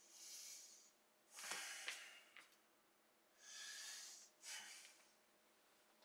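Near silence, with faint breathing heard as four short, soft puffs and a light click about two seconds in.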